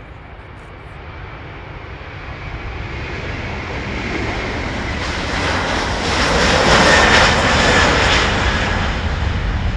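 Airbus A330 twin-engine jet airliner taking off, its engine noise building steadily, loudest about seven seconds in with a faint high whine over the rumble, then easing slightly.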